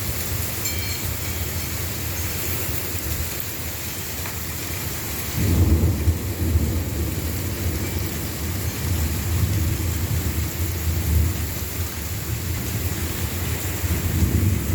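Steady heavy rain with rolling thunder from a thunderstorm; a deep rumble of thunder builds about five seconds in, and another swells near the end.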